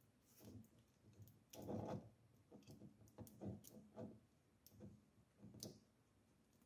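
Near silence broken by a few faint small clicks and rustles of hands handling the printer's hot-end parts and wires, the loudest a little under two seconds in.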